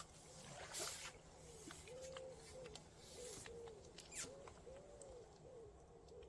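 A pigeon cooing repeatedly in a low, rounded series of notes. There is a brief rush of water about a second in as the landing net comes out of the water.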